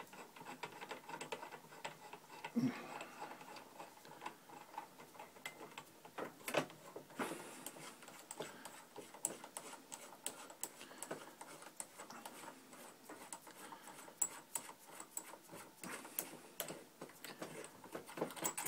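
Faint, irregular small clicks and metal taps of hands handling and turning the die parts of a MEC Junior Mk 5 shotshell reloading press while taking off the reconditioning die.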